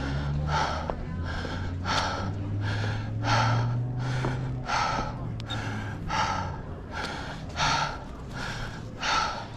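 A runner's heavy, rhythmic breathing close to the microphone, about two breaths a second, out of breath from running. A low steady drone sits underneath for the first five seconds or so.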